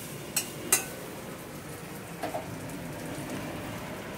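Steady frying hiss from a pan on a gas stove, with two sharp metal clinks of a utensil against the pan within the first second.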